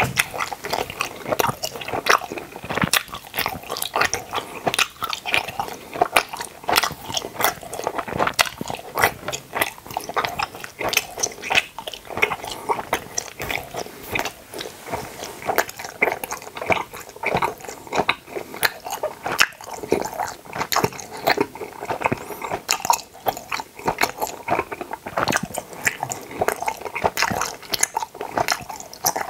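A person chewing denture-shaped gummy candies right at a clip-on microphone: a dense, continuous run of small mouth clicks and smacks, several a second.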